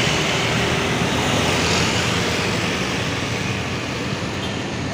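A passing tour bus's engine running close by, with a broad rushing road noise that slowly fades.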